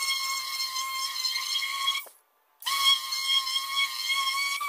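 Electric dual-action sander running with a steady high whine as its pad works over a primed steel Beetle body panel, smoothing the primer before paint. The whine cuts out for about half a second near the middle, then comes back, winding briefly up to speed.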